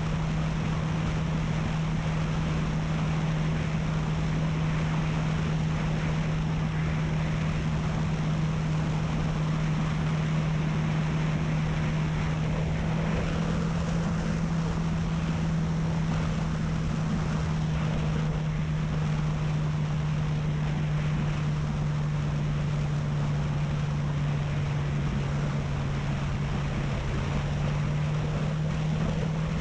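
Honda CB300F's single-cylinder engine running at a steady cruise, holding a nearly constant note, with wind rushing over the microphone.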